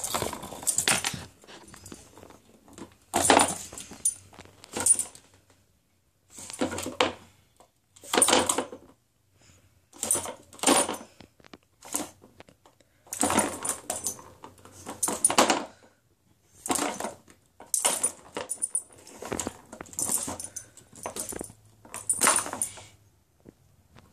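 A plastic ball rolling and rattling around the circular track of a cat toy as a puppy bats at it. It comes in many short runs of half a second to a second, with pauses between.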